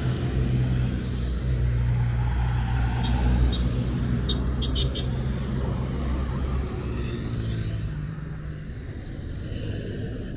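Roadside traffic: a nearby motor vehicle's engine running with a low, steady hum that fades away after about seven seconds, with a few brief clicks around the middle.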